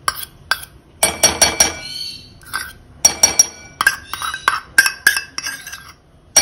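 A small glass bowl clinking against a steel kadhai as the last of the melted ghee is knocked out of it, in several quick runs of sharp, ringing clinks.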